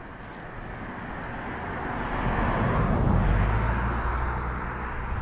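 A motor vehicle driving past, its rumble and tyre noise swelling to a peak about three seconds in and then easing off.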